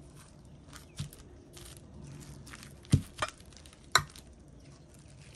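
A few sharp knocks and clicks, the loudest two about a second apart near the middle, over a low rumble of wind on the microphone.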